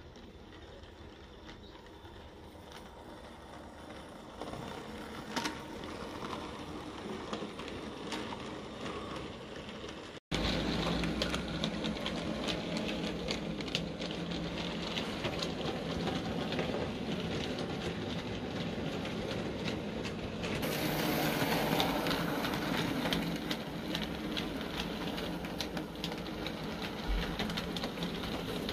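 00 gauge model train running on its track: a steady electric motor whirr with wheels clicking over the rail joints. It is quiet at first and gets much louder from about ten seconds in.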